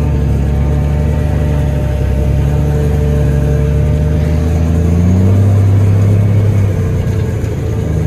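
A vehicle engine running steadily, its pitch rising about five seconds in and dropping back a second or two later.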